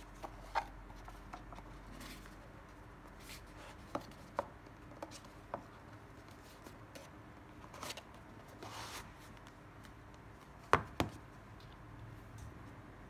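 Handling of a paper sketchbook: soft page and cover rustles and scattered light taps as it is closed and turned over, with a sharp double knock near the end as the book is set down.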